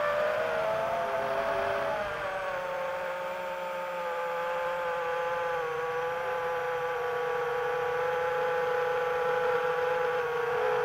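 Multirotor drone's motors and propellers whining steadily as it flies. The pitch rises briefly in the first couple of seconds, then settles slightly lower and holds.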